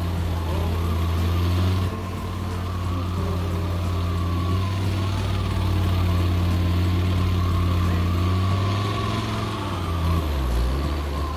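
A steady engine idle at a low, even pitch. The tone shifts slightly about two seconds in, and the pitch dips and rises briefly near the end.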